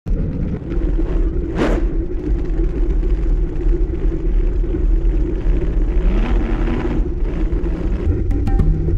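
Wind buffeting the microphone of a camera mounted on a moving road bicycle: a steady low rumble with road noise, and a short whoosh about one and a half seconds in. Music with a beat starts near the end.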